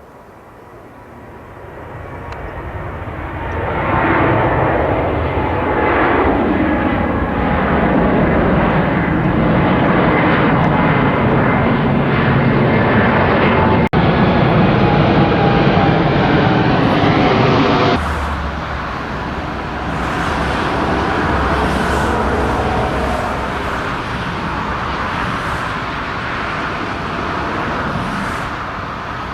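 Jet aircraft engines passing close by: the noise swells over the first few seconds, and whining tones in it slide down in pitch as the aircraft goes past, then it runs on loud. About 18 seconds in the sound changes abruptly to a lower, deeper aircraft rumble.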